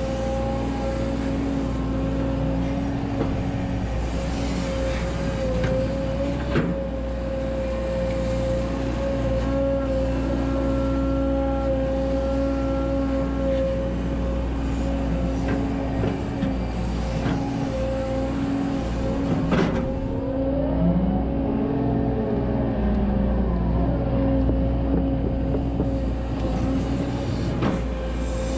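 Volvo EC140DL hydraulic excavator working from the cab: the diesel engine runs steadily under load with a steady whine over it as the boom and bucket dig and swing. A couple of sharp knocks stand out, one about six seconds in and another near the twenty-second mark.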